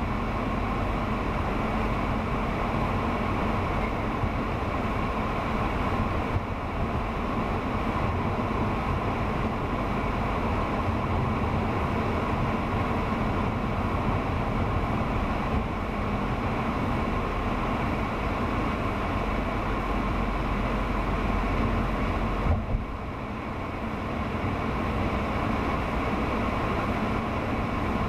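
Steady road noise inside a moving car's cabin: tyres on pavement and engine drone with a low rumble. A single knock about twenty-two seconds in, followed briefly by a slightly quieter stretch.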